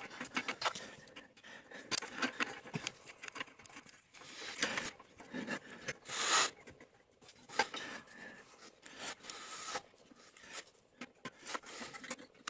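Small irregular metal clicks, taps and scrapes as a bolt is fitted into a scroll saw's lower blade mount and tightened with an Allen key, with one louder scrape about six seconds in.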